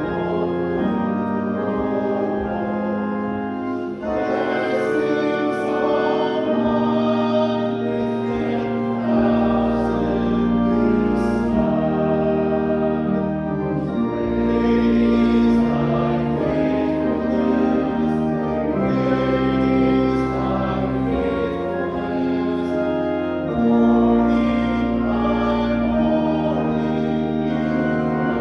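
Church music: a hymn sung by voices over organ, with long held chords and sustained bass notes changing every second or two.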